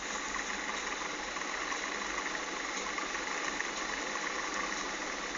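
A 24 V electrical-cabinet fan mounted on the lid of a plastic box of ice, running with a steady whir and rush of air.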